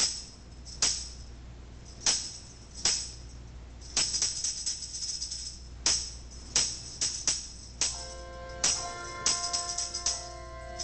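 Handbell choir music: sharp jingling percussion strikes at an uneven rhythm, then about eight seconds in, handbells ring out together on several sustained pitches while the jingle strikes go on.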